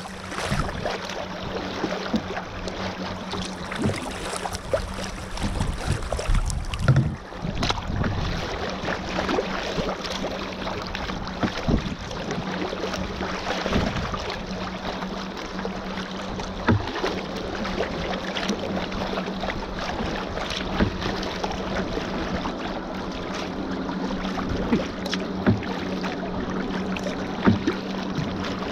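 Water splashing and lapping against the bow of a plastic sea kayak as it is paddled through light chop, with irregular splashes and knocks, under a steady low hum.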